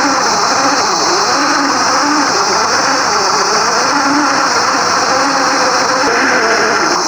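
Simulated engine sound from an FMS scale RC car's sound unit, its note rising and falling as the throttle changes, over a steady high-pitched hiss.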